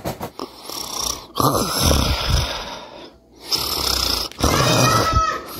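A person snoring: two long snoring breaths of about two seconds each.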